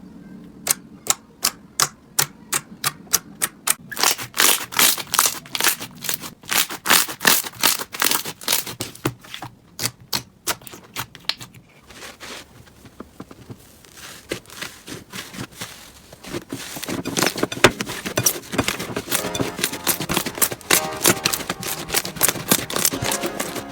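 Slime being pressed and poked by hand, giving a run of sharp clicking pops several times a second, then a denser crackling in the second half.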